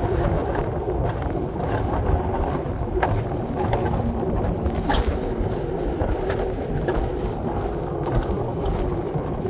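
Mountain coaster sled rolling down its steel rail track: a steady rumble from the wheels with scattered clicks and rattles.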